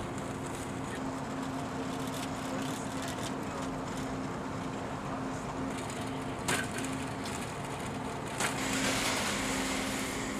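Steady low machinery hum over an even background rush, with two sharp knocks about two seconds apart past the middle and a brief swell of hiss after the second.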